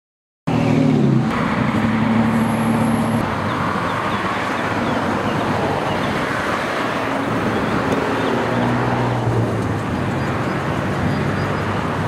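Road traffic: a car engine running and vehicles passing, a steady rumble and hiss that starts abruptly about half a second in.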